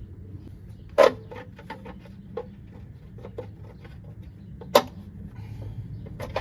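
Two sharp clicks about four seconds apart, with lighter tool clicks and clatter between them, over a steady low hum: hand tools being worked on the engine.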